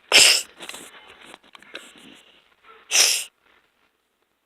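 A person sniffling sharply through the nose: one loud sniff at the very start and another about three seconds in, with fainter sniffs between them.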